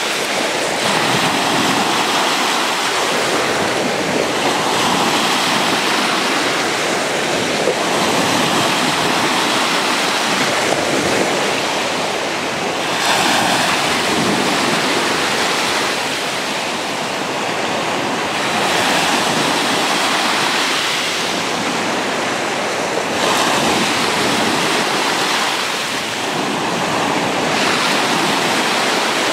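Sea waves washing and splashing in the shallows, rising and falling every few seconds.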